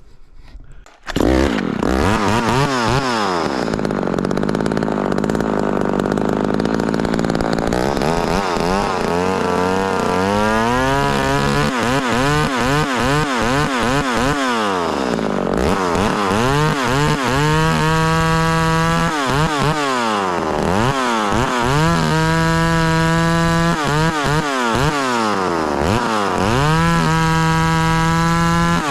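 Two-stroke chainsaw fitted with a pipe, free-revving: it comes in suddenly about a second in, then is blipped up and down over and over and held at full throttle several times for a couple of seconds each, showing quick throttle response.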